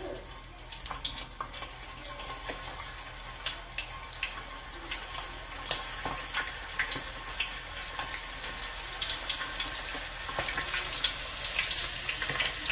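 Bacon-wrapped stuffed biscuit deep-frying in hot oil: a steady sizzling hiss full of small crackles and pops, growing louder as the frying gets going.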